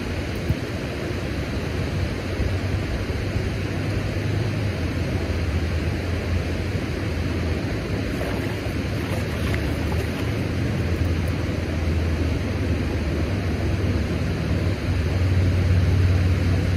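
Steady rush of turbulent water pouring out below a dam, with a low rumble that grows a little louder near the end.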